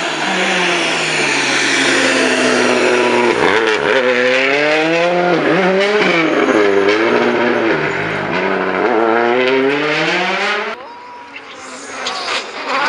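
Hyundai i20 WRC rally car's turbocharged 1.6-litre four-cylinder engine revving hard, its pitch falling and climbing several times as the driver lifts and changes gear through a corner. The sound cuts off suddenly about eleven seconds in, and another car is then heard approaching.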